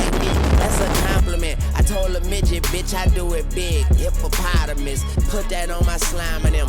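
Hip hop track: a rapped verse over a heavy, thumping bass beat. For about the first second a loud, noisy rush lies over the music, then it cuts off and the vocals come through clearly.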